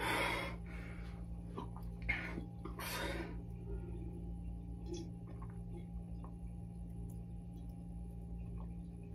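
A person takes several short, heavy breaths, then gulps carbonated water from a large glass, with faint swallowing and small clicks over a steady low hum.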